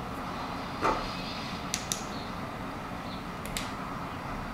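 Light metallic clicks, two quick pairs, from a steel drill-rod punch being fitted against a stuck pin in a vise body, after one soft knock about a second in, over a steady shop background hum.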